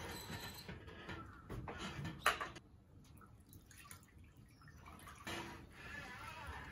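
Water splashing and dripping in a plastic basin as a cleaning rag is dunked and wrung out by gloved hands, with a sharp click a little over two seconds in.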